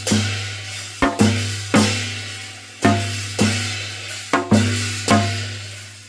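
A Korean shaman-ritual drum struck in a slow, uneven beat of about nine strokes, some in quick pairs, each with a deep boom that dies away slowly. It accompanies the sleeve-bow dance of a Seoul-style gut and cuts off abruptly at the end.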